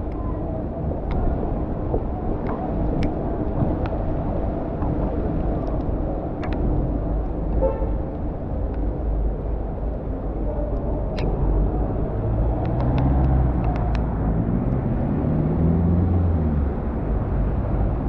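City road traffic: a steady rumble of vehicles passing, with a heavier engine running close by in the second half.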